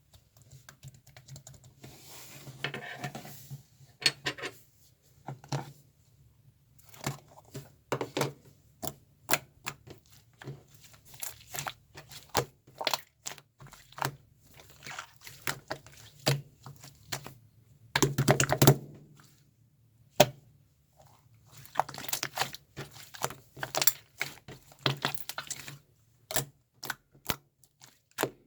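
Irregular small clicks and taps, many in quick succession, with a few short stretches of rustling over a low steady hum.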